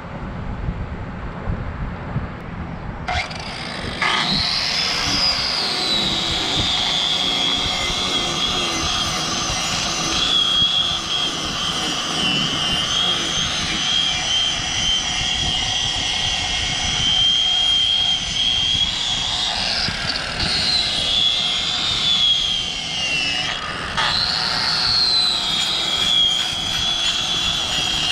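Angle grinder with a tire-shaving disc, starting up about three seconds in with a rising whine, then running steadily while shaving rubber from a tractor tire's lugs. Its pitch sags as the disc bites, and near the end it cuts out briefly and winds up again.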